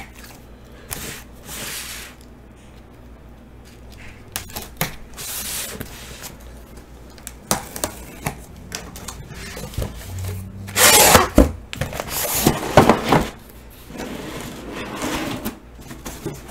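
A box cutter slitting the packing tape along a cardboard shipping case, then tape and cardboard flaps being pulled apart with scraping and rustling. The loudest tearing and rustling comes about two-thirds of the way through.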